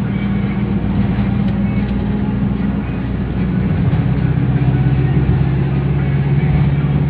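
Engine and road noise inside a moving vehicle's cabin, a steady hum under the rush of tyres and air; about halfway through, the engine's hum drops to a lower pitch.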